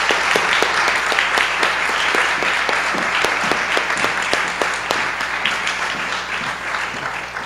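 Audience applauding in a large hall, steady at first and dying away toward the end.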